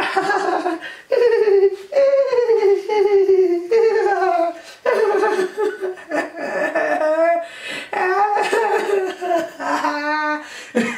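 A person's loud, wordless vocal outbursts: a run of drawn-out cries that slide down in pitch, several with a shaky, wavering pitch.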